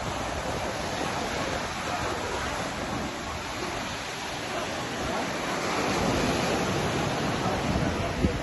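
Sea surf rushing and washing onto the shore as a steady noise that swells about six seconds in. A short knock comes near the end.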